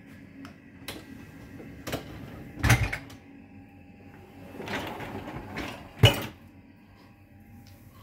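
Hotpoint dishwasher being closed up: a few light clicks and a clattering knock of the racks and crockery, a rolling rumble as the loaded lower rack slides in, then one sharp thud as the door shuts.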